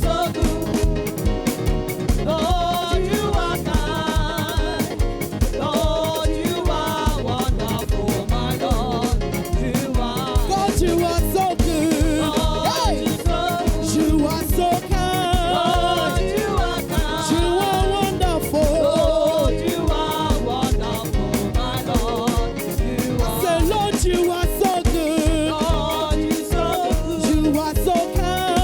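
Live church praise band playing an upbeat dance song with a steady drum beat, with voices singing along.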